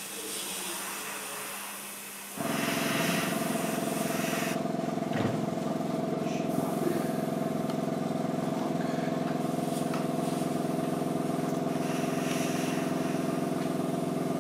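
Airbrush hissing as it sprays paint. A little over two seconds in, a small air compressor's motor switches on abruptly and runs with a steady hum.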